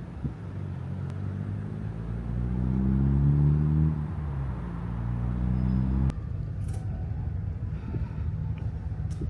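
A motor vehicle's engine hum rises in pitch and falls again, then cuts off abruptly about six seconds in. A steady low rumble follows.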